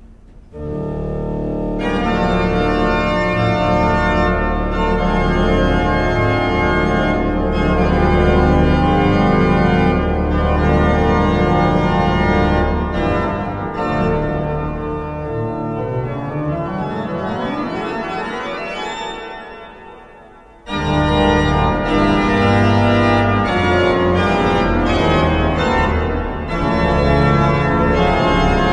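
Church pipe organ playing loud, full sustained chords with deep pedal bass. About two-thirds through, the sound thins into a fast rising run that dies away to a brief near-gap, then full chords come back in suddenly.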